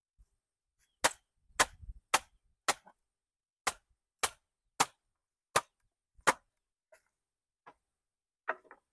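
Repeated sharp, hard blows, about nine in a row roughly half a second apart, followed by a few lighter knocks near the end.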